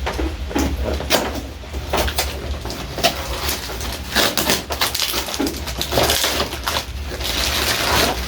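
A package being opened by hand: plastic or paper packaging crinkling and rustling, with many sharp clicks and taps as it is torn and handled, over a steady low hum.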